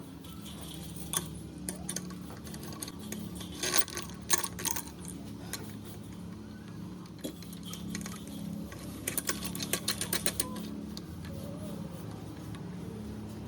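Light clicks and rattles of small hardware being handled, in two clusters, over a steady low hum.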